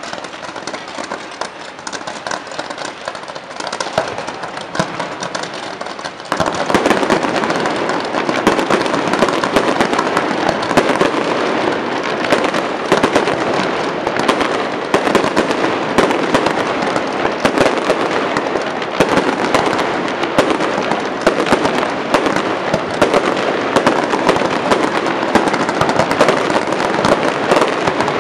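Fireworks display going off: a dense, continuous stream of rapid pops and bangs, which grows much louder about six seconds in and stays that way.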